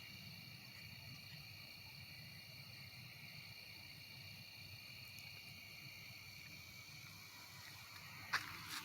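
Faint, steady night chorus of crickets and other insects trilling in the woods. A short click near the end.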